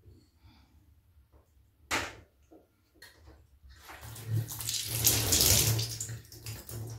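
Water jetting in a thin stream from the open end of a shower hose and splashing onto a bathtub, building up about four seconds in. A brief sharp knock comes about two seconds in.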